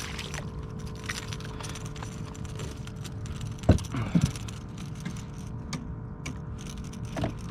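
Scattered small clicks and knocks from handling a freshly landed speckled trout and fishing tackle on a plastic kayak, with one sharp knock about three and a half seconds in, over a steady low hum.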